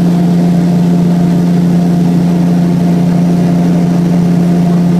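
Aircraft engine droning steadily inside the cabin during low flight, a constant hum with one strong low tone.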